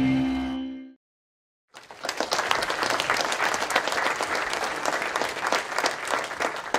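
Audience applauding, many hands clapping, starting about two seconds in and thinning near the end. Before it, sustained tones of ambient intro music fade out in the first second.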